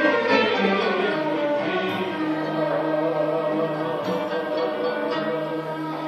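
Turkish classical music ensemble of bowed and plucked string instruments playing an instrumental passage in makam Hicaz, with no voice.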